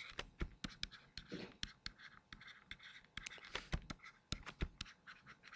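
Faint irregular tapping and scratching of a stylus on a tablet screen as words are handwritten.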